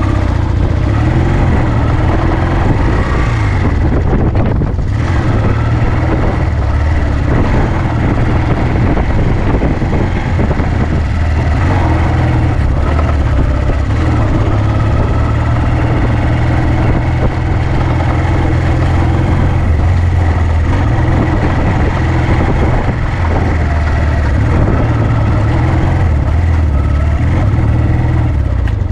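Honda CD125T Benly's 125 cc air-cooled parallel-twin four-stroke engine running steadily under way, its pitch rising and falling a little with the throttle.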